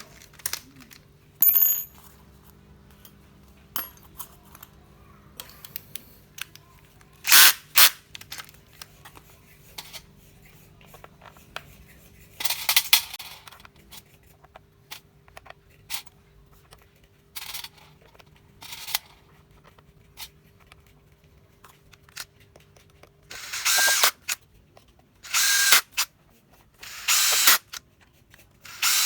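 Snap-on 18V cordless impact wrench run in six short bursts, the longest about a second and a half, four of them close together in the last six seconds, with small clicks between them.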